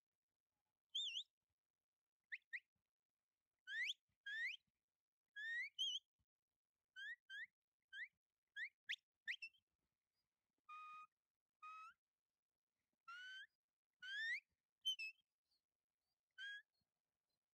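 Herding whistle commands to a working kelpie moving sheep: a string of short, sharp rising whistled notes with gaps between, some in quick pairs, and a couple of flatter held notes midway.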